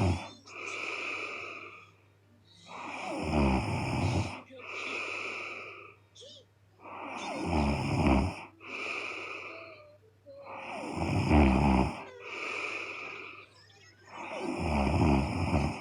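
A woman snoring heavily in her sleep: a loud, rattling snore followed by a softer, hissing breath out, repeating about every four seconds, four times over.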